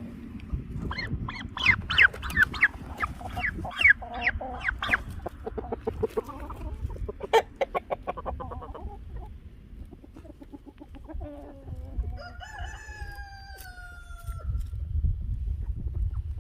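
Chickens clucking and squawking in a quick run of loud calls, then a rooster crowing once, a long call that falls slowly in pitch near the end.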